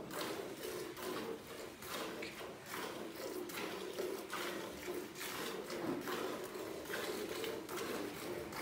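A cow being milked by hand: streams of milk squirting in a steady rhythm, about two hissing squirts a second.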